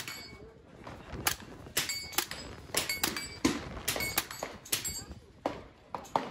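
Suppressed SIG Sauer semi-automatic carbine firing a quick, unevenly spaced string of about fifteen shots, with struck steel targets ringing briefly after several hits.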